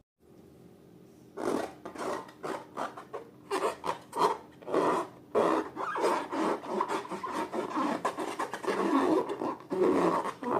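Hands squishing and kneading slime, a run of quick, irregular squishing and crackling strokes that starts about a second and a half in.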